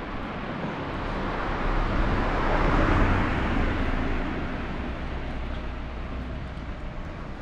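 A small car driving slowly along a narrow street close by: engine and tyre noise swell to a peak about three seconds in, then fade.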